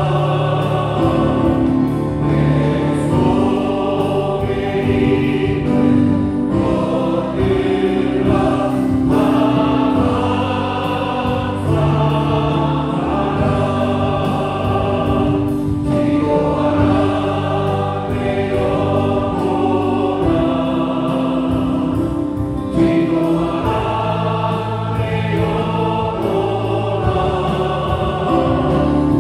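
A group singing a gospel hymn in chorus, accompanied by a Yamaha Montage 8 synthesizer keyboard and bass guitar.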